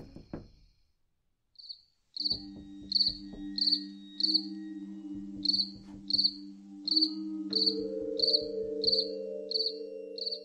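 A cricket chirping, short high chirps about three every two seconds, starting about two seconds in. Under it runs a low held drone, with a higher note joining partway through.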